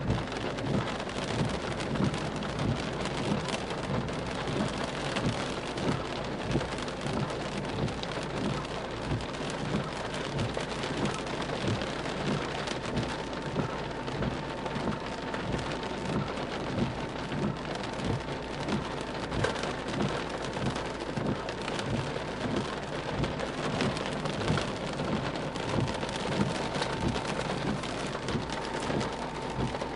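Heavy rain beating on a car's windscreen and body, heard from inside the car: a dense hiss studded with many separate drop impacts.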